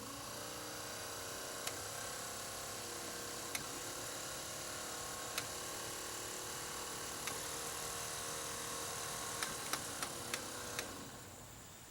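MotorGuide trolling motor's electric motor running steadily in forward with an even hum after its speed switch has been replaced, showing that the new switch works in forward. Faint clicks come every couple of seconds, and the motor winds down near the end.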